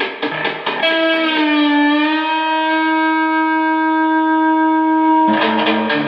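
Electric guitar: quick rhythmic picking, then about a second in a single long held note that wavers in pitch before settling and ringing on for about four seconds, after which fast picking on lower notes starts again near the end.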